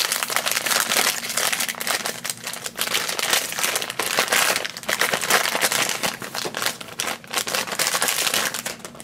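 Foil blind bag being torn open and crumpled in the hands: a dense, irregular crinkling and rustling of the foil that stops near the end.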